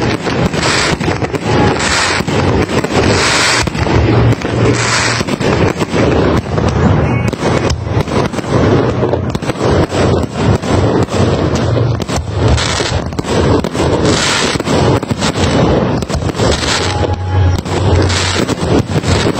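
Fireworks display: a dense, unbroken barrage of shell bursts and crackling, bang after bang with no pauses.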